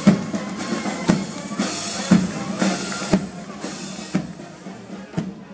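Military marching drums: a beat about twice a second with snare drums rattling between the strokes, growing fainter near the end.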